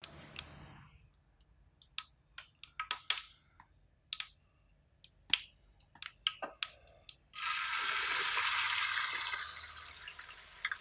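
Hot oil in a nonstick frying pan popping and crackling in sharp, scattered pops. About seven seconds in, a loud sizzle starts suddenly as a slab of pork belly goes into the oil, then eases into a lower sizzle with crackles near the end.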